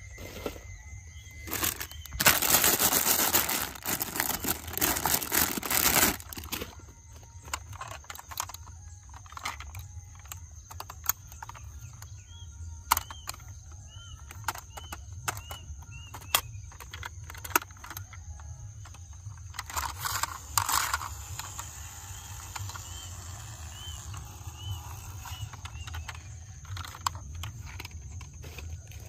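Toys being handled: scattered sharp clicks and knocks, with loud rustling between about two and six seconds in and again around twenty seconds. A faint run of short high chirps comes twice, mid-way and near the end.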